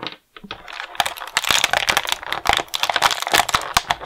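Thin clear plastic blister tray crackling and crinkling as a figure stand is pried out of it: a dense run of sharp clicks that builds up about a second in.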